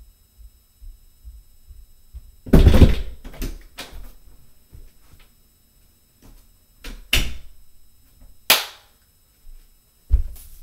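A few scattered thumps and knocks in a small room, the loudest about two and a half seconds in, with a sharp one about eight and a half seconds in and another just before the end.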